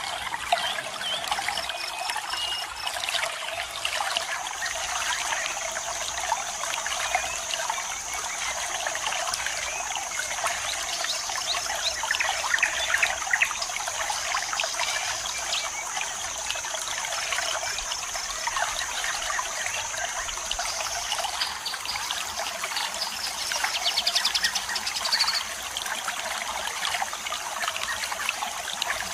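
Waterfall water splashing and trickling steadily, with small bird chirps. A steady high insect buzz sets in about four seconds in and stops about two-thirds of the way through, and a rapid chirping trill follows a few seconds later.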